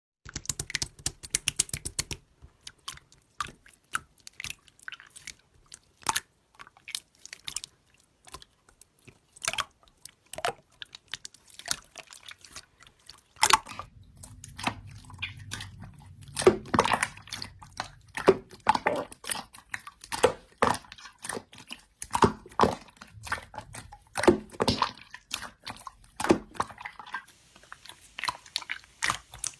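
Slime being squished and pressed by hand, making a dense run of sticky clicks and small air-bubble pops. The character of the clicking changes a couple of times, as one slime follows another.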